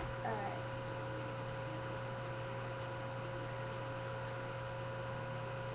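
Steady electrical hum with a faint high steady tone over a constant hiss, typical of a webcam and computer recording chain.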